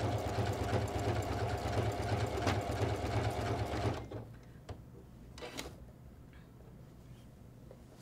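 Janome Memory Craft 14000 computerized sewing machine stitching at a fast steady speed through quilt binding, then stopping about halfway through. A few faint clicks follow.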